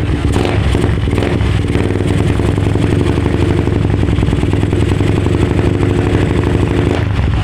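Exhaust of a carburetted Suzuki Raider motorcycle fitted with an aftermarket Taikom power pipe, running steadily at an even speed.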